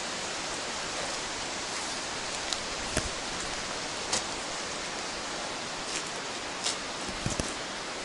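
A steady rushing noise, with a handful of short sharp clicks and crunches scattered through it. The loudest is a quick double click near the end.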